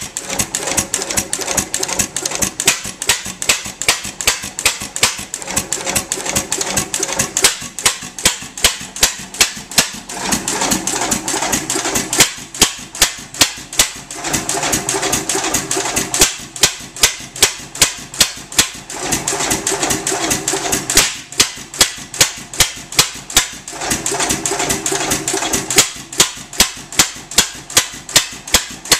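3½ hp Goold, Shapley & Muir hit-and-miss gas engine running, with a fast, steady clatter of its valve gear. Every few seconds it fires a run of strong, regular exhaust beats, then coasts between them as the governor holds the exhaust open.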